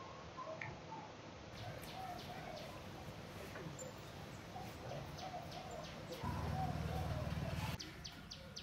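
Faint outdoor ambience of birds chirping and calling, with a low buzz lasting about a second and a half near the end.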